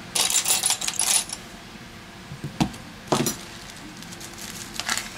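Handling noise from an LG X Power 2 phone with its back cover off and small repair tools: a quick run of light clicks and rattles in the first second, then a few single sharp clicks as it is set down and the tweezers come in.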